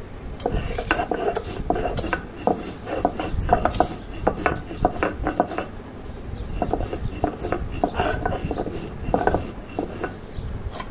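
Stone roller grinding dried red chillies and salt on a shil-pata grinding stone: repeated gritty stone-on-stone rubbing strokes, with a short pause about halfway through.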